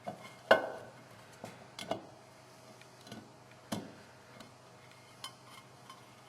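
Scattered metallic clinks and taps of engine parts being handled and fitted, as a stator cover is worked into place on a motorcycle engine case. The loudest click comes about half a second in, with others near two and four seconds and fainter taps between.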